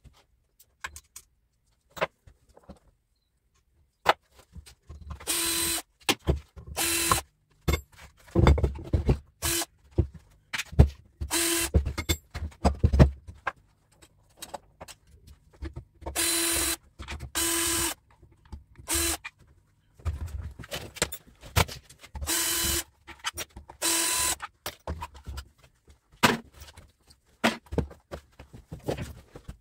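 Cordless drill-driver with a nut-driver bit running in short bursts of half a second to a second, about ten times, backing screws out of a geared electric motor's metal housing. Between the bursts come clinks and knocks of screws, bits and the metal casing being handled.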